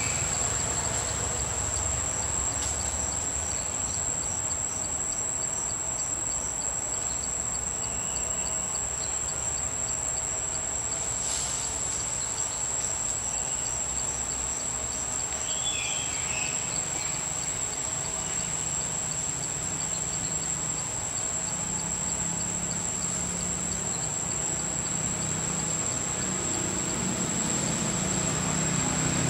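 Insects calling: a steady high-pitched shrill that holds unbroken throughout, with a fainter pulsing trill beneath it. A few short high chirps come and go.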